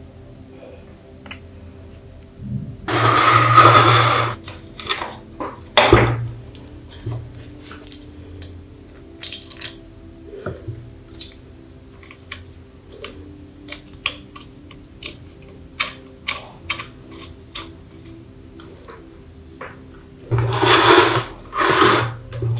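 Hands handling a restored metal lamp housing and its fittings: scattered sharp clicks and taps of metal, a firmer knock about six seconds in, and two longer noisy stretches of handling, one about three seconds in and one near the end.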